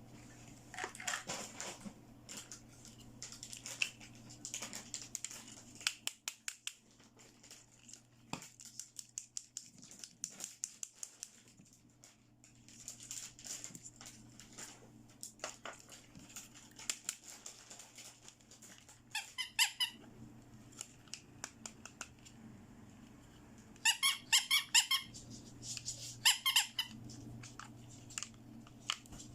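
Small plastic toy pieces and packaging being handled: a run of light clicks and rustling, with three short bursts of rapid squeaking near the end.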